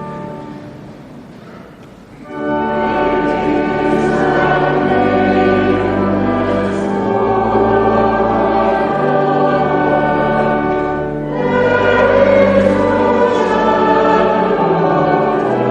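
Choir singing a hymn with instrumental accompaniment; a held chord fades out, and the full choir and accompaniment come in about two seconds in, pausing briefly near eleven seconds before continuing.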